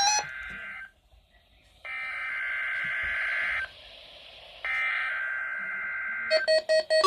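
Weather radio test signal through a receiver: two buzzy digital data bursts (SAME header tones), each nearly two seconds long and a second apart. Near the end a loud, pulsing electronic warning alarm tone begins.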